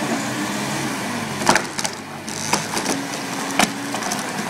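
Tree trunk cracking and splintering as it gives way and falls under the push of a telehandler, a series of sharp snaps from about a second and a half in. The telehandler's engine runs steadily underneath.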